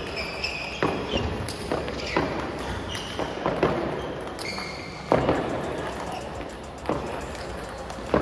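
Table tennis balls being struck by bats and bouncing on tables, several rallies going at once in a large practice hall: a stream of irregular sharp clicks, with short high squeaks in between.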